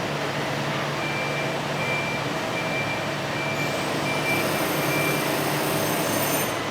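Automated machining cell with a transfer robot running: a steady machinery hum, a series of about six short, evenly spaced warning beeps, and a high whine that comes in about halfway through and stops just before the end.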